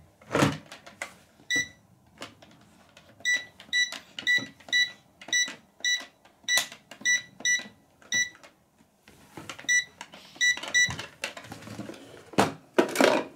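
Toy microwave playset's buttons beeping as they are pressed: a run of short, high electronic beeps about two to three a second, with plastic clicks between, and a louder plastic clatter near the end.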